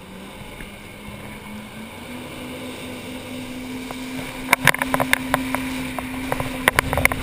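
Personal watercraft engine running at speed, its pitch stepping up a little about two seconds in, over the rush of water and spray along the hull. From about halfway, the sound grows louder, with many sharp slaps as the hull hits the chop and spray strikes.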